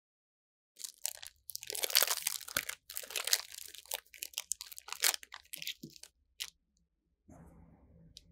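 Plastic Oreo cookie wrapper being torn open and crinkled by hand. It starts about a second in as a dense run of sharp crackles, loudest in the first few seconds, and dies away after about six seconds.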